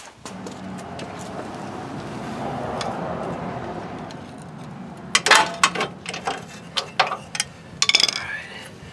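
Metal clicks and clanks of a beam torque wrench and its socket being wrestled off a stuck retainer-plate nut on a Dana 44 rear axle, coming in the second half. Before them, a smooth rushing sound swells and fades over the first four seconds or so.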